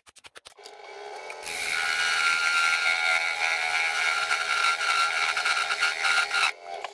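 Wood lathe spinning up, then a turning tool cutting into the spinning cherry burl, a loud steady shaving noise with a steady whine that stops suddenly about six and a half seconds in.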